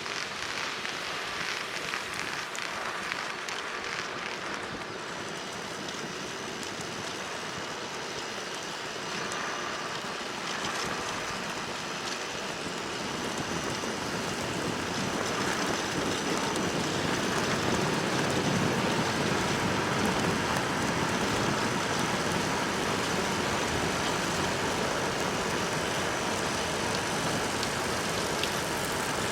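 Steady rushing noise of a recumbent trike being ridden on the road, with tyres rolling and wind passing, growing louder from about halfway through.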